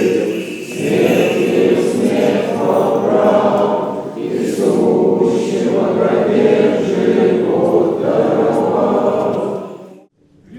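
Russian Orthodox church choir singing a Paschal chant a cappella in sustained chords, in phrases with brief breaks between them. The singing breaks off abruptly near the end.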